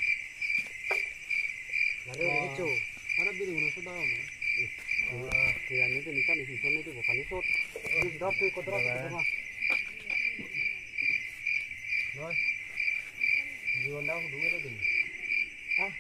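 Crickets chirping in a steady, even pulse, with men's low voices talking quietly at intervals underneath.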